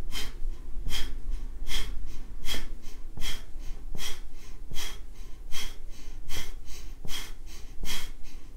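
A woman doing kapalabhati (breath of fire): short, forceful exhales through the nose, a little faster than one a second, driven by the belly muscles, with quiet passive inhales in between.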